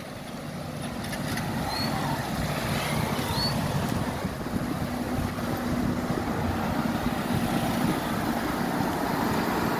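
Steady engine and road noise of a vehicle moving along a street, with a low steady hum through the middle and two short high chirps about two and three seconds in.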